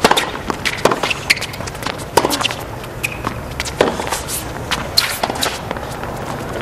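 Tennis serve and rally on a hard court: the racket strikes the ball with a sharp pop right at the start, then hits come back and forth about every second or so, with short high squeaks of shoes on the court between them.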